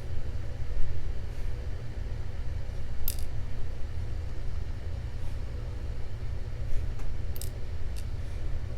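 A few short, sharp clicks of small padlock parts and tools being handled while the lock is disassembled, the clearest about three seconds in and a cluster near the end, over a steady low hum.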